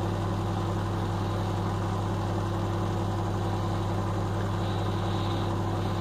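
Microwave oven running with a low, steady mains hum and fan noise, drawing power but not heating. The high-voltage transformer is energized while the secondary circuit has a fault.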